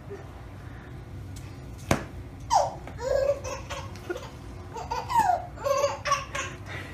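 A baby laughing in several short squealing bursts that fall in pitch, starting about two and a half seconds in, just after a sharp click.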